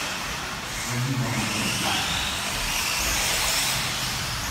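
Radio-controlled cars running on an indoor race track: whining motors rising in pitch over a steady, dense hiss.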